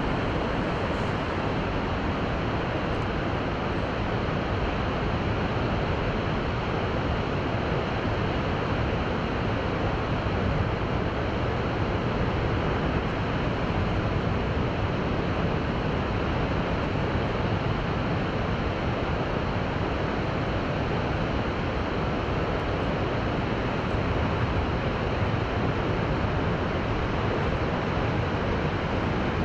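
Rjukanfossen, a large waterfall running at full flow, makes a loud, steady, deep rush of falling water that does not let up.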